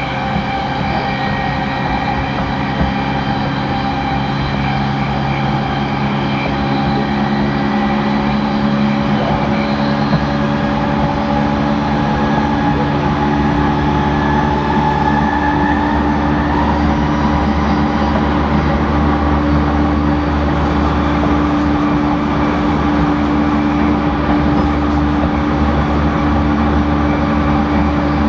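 JR East E231 series suburban train standing still with its onboard equipment running: a steady electrical hum and whine made of several held tones, a few of which creep slightly higher in pitch about halfway through.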